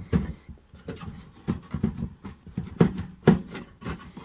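Irregular clunks and knocks from an electric heater's metal shell being tugged and wiggled as it is lifted out; it does not come free, held by something inside.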